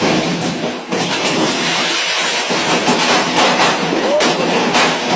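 A street fire of burning fireworks gunpowder, a loud, steady hissing rush with many sharp crackles as it throws sparks.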